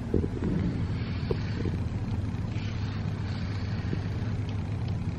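Domestic cat purring steadily close to the microphone, a continuous low rumble, with soft brush strokes over its fur and a few light clicks.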